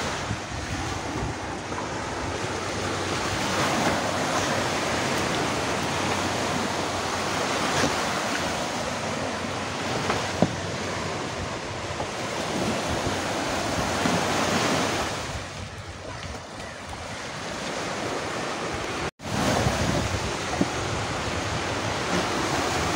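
Sea waves washing onto a sandy beach, mixed with wind blowing on the microphone. The sound drops out for an instant about nineteen seconds in.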